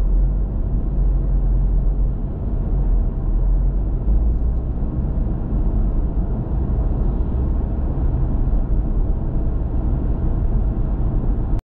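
Steady low rumble of a car's engine and tyre noise while driving, heaviest in the deep bass, cutting off suddenly near the end.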